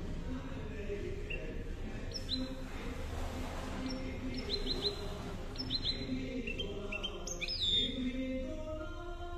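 Caged goldfinch × canary hybrid (mule) singing in short bursts: sharp high chirps, a quick run of three notes about halfway through, and a few downward-sweeping whistles, the longest near the end.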